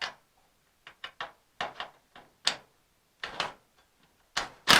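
Hand tools working on bolts at the car's front end: a string of short, irregular clicks and knocks, with a louder knock near the end.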